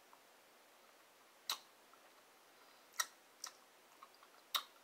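Mouth clicks and lip smacks while chewing and tasting a jelly bean: four sharp clicks roughly a second and a half apart, with a few fainter ones between.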